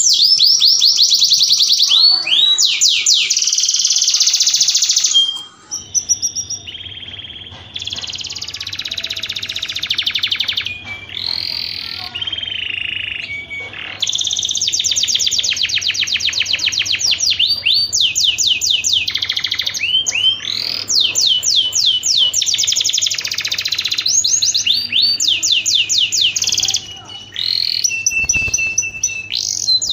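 Domestic canary singing a continuous, high-pitched song of fast trills and rolls, switching to a new trill every second or two. It is the song of a canary in breeding mood, played to bring other canaries into mating condition.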